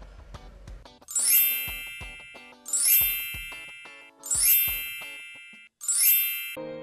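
A bright, sparkling chime sound effect rings four times, about one and a half seconds apart, each strike loud at once and then fading out. Soft background music plays for about the first second.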